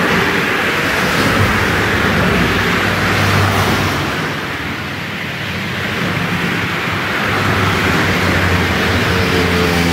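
Road traffic passing: vehicles going by one after another, a rushing noise with a low engine hum that swells, eases off about five seconds in, and swells again.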